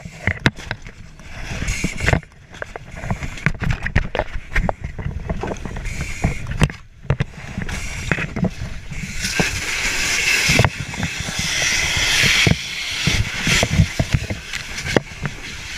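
A firefighter's gear and tools knocking, scraping and rustling close to a helmet-mounted camera inside a burning, smoke-filled house, over a low rumble. Past the middle there is a loud, steady hiss lasting about three seconds.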